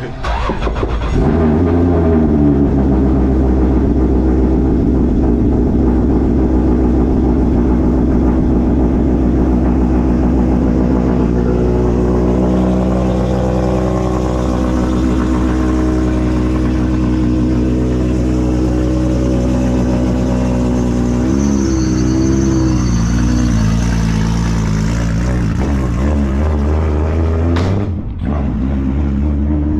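Toyota FR-S drift car's engine starting about a second in and then idling steadily, with a brief blip of revs about two-thirds of the way through.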